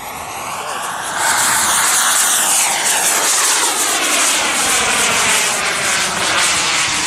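A jet-powered model airplane passes close by. Its turbine whine and rushing hiss swell about a second in, then the pitch drops as it goes past.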